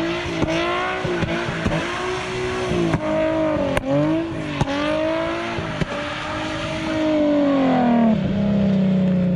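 Car engine revving up and down over and over, about once a second, as the car slides around in a drift on wet pavement, with short sharp pops; the revs fall away steadily near the end.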